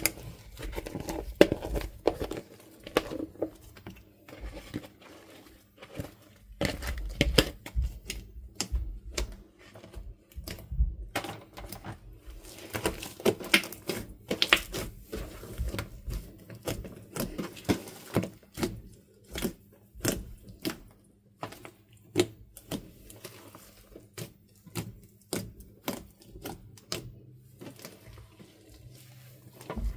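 Thick fluffy slime squeezed, stretched and poked by hand, giving irregular sticky clicks, pops and squelches, with dull thumps as the mass presses onto the table.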